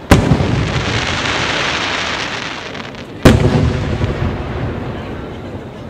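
Aerial firework shells bursting overhead: two loud booms about three seconds apart, each followed by a rumble that dies away over a couple of seconds.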